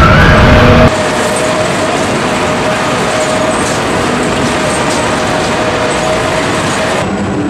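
Loud music with heavy bass cuts off about a second in. It gives way to a steady wash of noise from fairground rides running in a large hall, with a steady hum under it.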